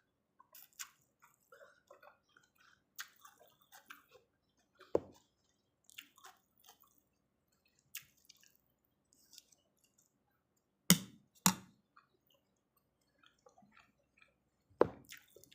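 A person eating pork noodle soup: soft, wet chewing and mouth sounds, broken by sharp clinks of utensils against the bowl about five seconds in, twice in quick succession near eleven seconds, and once near the end.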